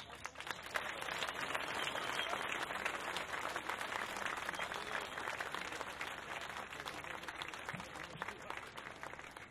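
An audience applauding, many hands clapping together, dying down over the last few seconds.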